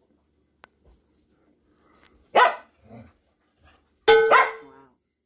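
Pet dog barking: one sharp bark about two seconds in, a softer one just after, then two quick barks close together near the end.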